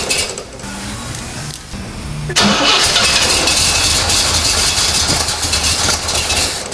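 A 1970 Corvette's 350 small-block V8 being cranked and started, with the ignition now given key-on power. It is loud at first, drops off for about two seconds, then comes back suddenly and loud about two and a half seconds in and keeps going.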